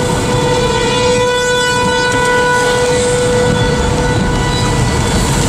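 Outdoor tornado warning siren holding a steady tone, heard over the rumble of rain, wind and road noise around a moving vehicle.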